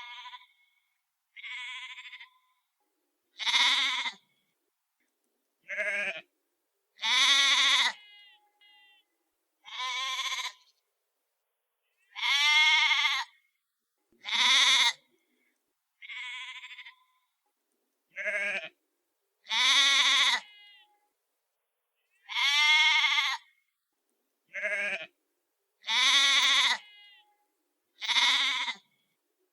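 Sheep bleating: about fifteen separate baas follow one after another, roughly every one and a half to two seconds, varying in pitch and length, with silence between them.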